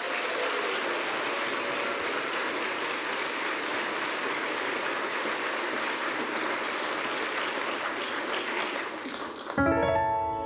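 Audience applause, an even steady clapping, welcoming a group of singers. Near the end the clapping gives way to music starting with a held chord.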